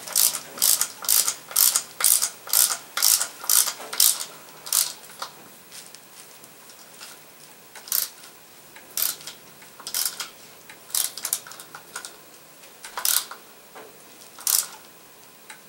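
Small hand ratchet wrench clicking as small bolts on an automatic transmission valve body are tightened by hand. A quick, even run of about two clicks a second for the first five seconds or so, then scattered single clicks.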